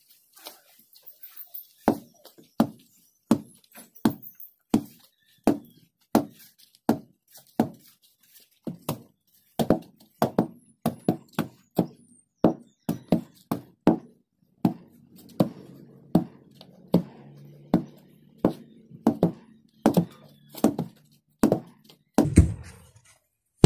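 Two wooden hand tampers pounding loose soil to compact it. Dull thuds come about one to two a second, slightly out of step, faint at first and loud from about two seconds in.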